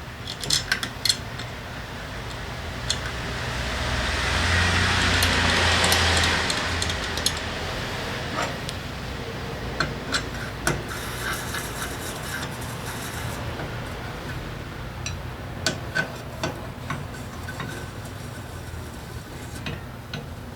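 Metal tools and small engine parts clicking and clinking during motorcycle engine work, over a low steady hum. A swell of hiss rises and falls about four to seven seconds in.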